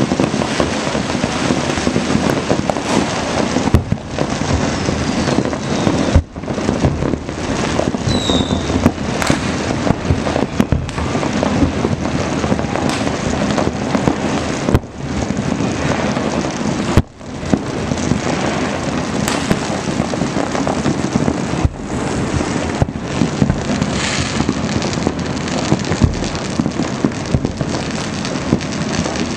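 Dense, unbroken crackling and popping of many firecrackers and fireworks going off across the city at once, with sharper single bangs standing out every few seconds.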